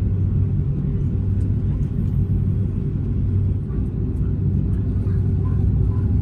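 Steady low rumble inside an Airbus A330-300's cabin as the airliner taxis, the engines and rolling gear giving an even drone with a strong low hum.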